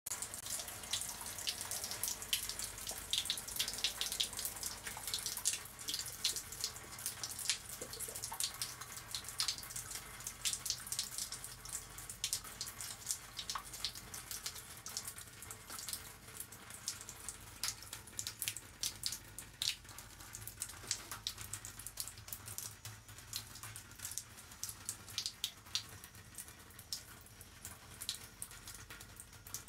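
Irregular crackle of water dripping and trickling, dense at first and thinning out in the second half, over a faint steady low hum.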